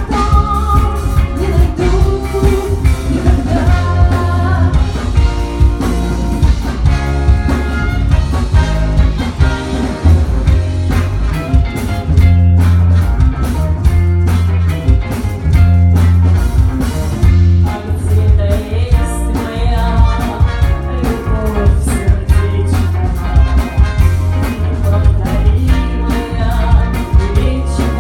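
A live band playing a song with a singer, over a loud pulsing bass line and drums.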